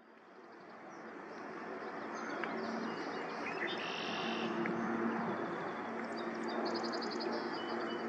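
Open-air ambience fading in: small birds chirping and trilling over a steady low drone.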